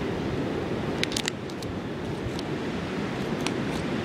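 Strong wind buffeting the microphone, a steady rushing noise, with a few light clicks about a second in and again near the end from a blade prying staples out of a snowmobile seat pan.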